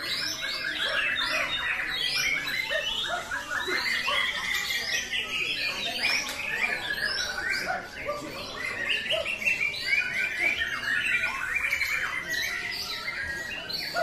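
Many caged white-rumped shamas (murai batu) singing over one another: a dense, overlapping chorus of quick whistled phrases.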